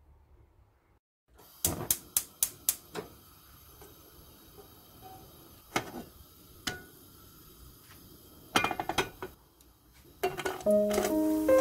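Kitchen utensils and dishes clinking: a quick run of four sharp clinks, two single ones, then a brief cluster. Piano music comes in near the end.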